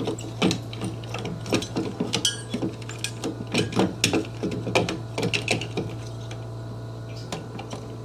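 Irregular clicks, taps and knocks of hand tools and pipe being handled, several a second, over a steady low hum.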